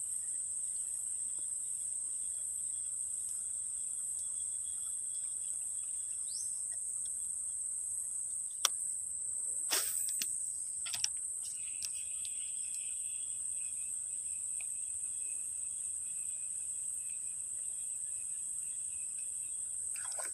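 Steady high-pitched drone of an insect chorus, with a fainter, lower insect tone beneath it. A few brief knocks and rustles come about halfway through as the fishing line and lure are handled.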